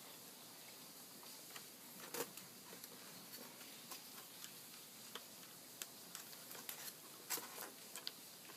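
Faint, scattered small clicks and taps of plastic as a Dell Mini 1012 netbook's keyboard is handled and fitted back onto the laptop, with a couple of louder ones about two seconds in and near the end.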